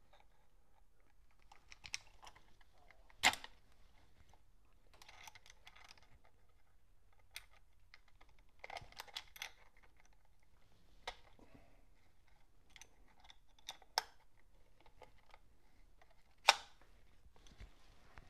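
Scattered small metallic clicks and taps of needle-nose pliers working the coiled steel mainspring inside a Cheney phonograph motor's spring barrel, hooking the spring's inner end onto the arbor. A few sharper clicks stand out, one about three seconds in and two near the end.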